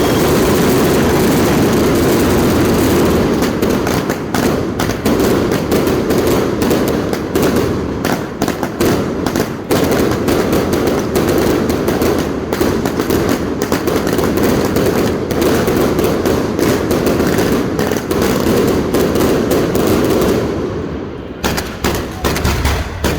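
Fireworks going off in a dense, rapid crackle of bangs, after a steady rushing sound at the start. They ease off briefly near the end, then a few separate bangs follow.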